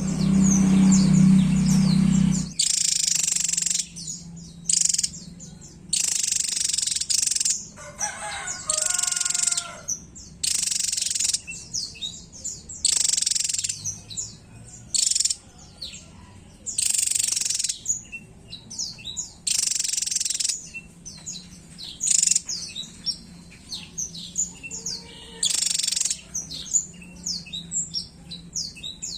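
Javan tesia singing: short bursts of high-pitched, rapid warbling, each about a second long, repeated every one to two seconds. A low hum sits beneath, stronger for the first couple of seconds.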